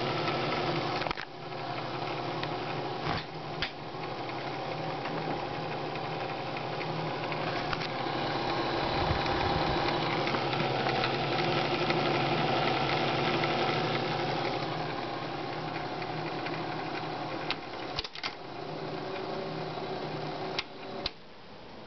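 Elmo K-100 SM dual 8/super 8 film projector running: a steady mechanical whirr and chatter of its motor and film transport. A few sharp clicks come through, and it drops quieter about a second before the end.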